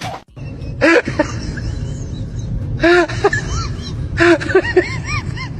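An animal calling in short rising-and-falling cries, in three bursts, over a steady low rumble.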